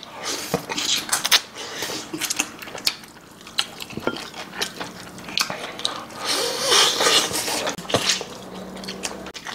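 Close-miked eating sounds: wet chewing, smacking and sucking as braised pork backbone meat is gnawed off the bone, with many small clicks and a louder stretch about six seconds in.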